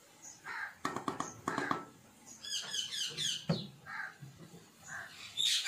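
A wooden spoon stirring raw chopped spinach in a large aluminium pot, rustling and scraping in the first two seconds. Then come quick, high chirping calls of small birds, a short burst of them near the middle and again near the end.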